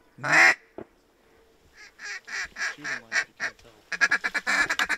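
Hunter's duck call blown in a series of quacks. It starts with one loud quack, then quacks about four a second, and near the end a fast chatter of about ten notes a second: a feeding chuckle.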